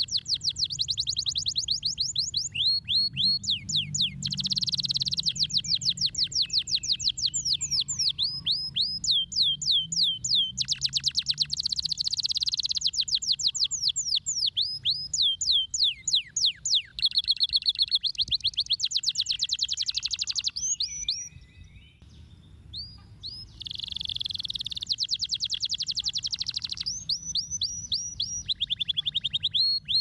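Yellow domestic canary singing a long, high-pitched song of rapid trills and rolls of quickly repeated notes, with short breaks between phrases and a longer pause about two-thirds of the way through.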